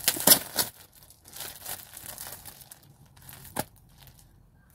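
Packaging being torn and crinkled by hand, loudest in the first second and fading to lighter rustling, with one sharp click a little past three and a half seconds in.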